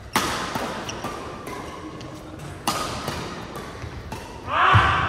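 Badminton racket strikes on a shuttlecock during a rally: two sharp, loud hits about two and a half seconds apart, with lighter taps and footsteps on the court mat between them. Near the end comes the loudest sound, a short squeal that bends in pitch.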